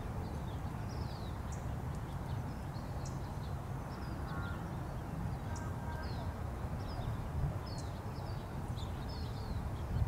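Small birds chirping in short, falling notes, about one or two a second, over a steady low rumble.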